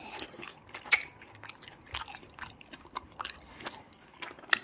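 A cat biting and chewing soft treat pieces pulled off a skewer: a run of small, irregular clicks and smacks, a few each second.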